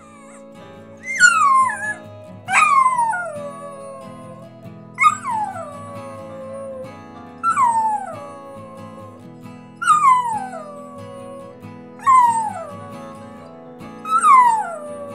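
Dachshund howling over and over: seven short howls about two seconds apart, each starting high and sliding down in pitch, over steady background music.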